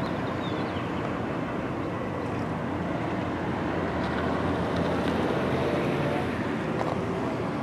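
Fire department pickup truck driving off along a street: a steady rumble of engine and road noise mixed with wind on the microphone.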